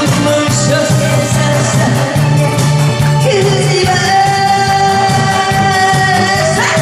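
A woman singing a Korean song into a handheld microphone over instrumental music with a steady beat. About three seconds in she holds one long note.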